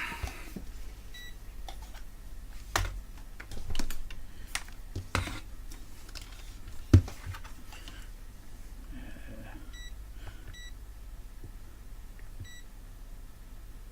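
Capacitor ESR meter giving short electronic beeps, one about a second in, two close together near ten seconds and one more near the end, while capacitors on a UPS circuit board are tested in turn. Sharp clicks and knocks of probes and the board being handled come between, the loudest about seven seconds in.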